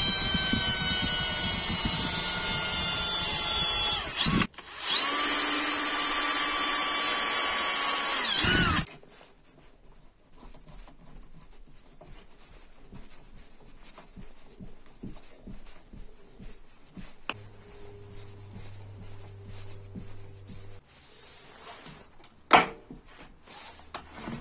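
Cordless drill-driver driving screws to fix a concealed cabinet hinge into a resin-filled hinge seat in an MDF door: the motor runs twice for about four seconds each, its whine sagging slightly in pitch as the screw tightens. Then quieter handling of the hinge with light clicks, and two sharp clicks near the end.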